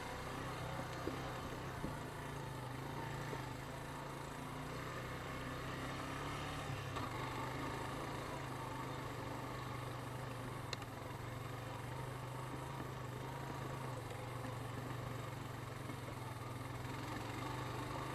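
ATV engine running steadily at low trail speed. A few light clicks are heard over it.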